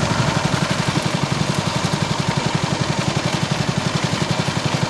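Small engine of a motorised bamboo raft running steadily under way, a fast, even pulse of about a dozen beats a second with a steady hiss over it.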